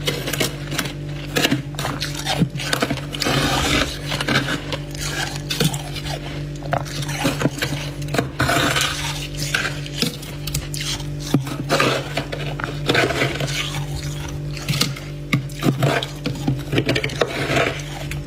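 Freezer frost ice being crunched and scraped, with many sharp crunches and short scrapes in an uneven rhythm over a steady low hum.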